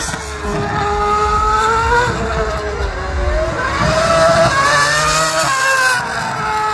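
Ferrari Formula 1 car's engine at high revs on track, its pitch climbing through each gear and dropping sharply at gear changes, about two seconds in and again about five and a half seconds in.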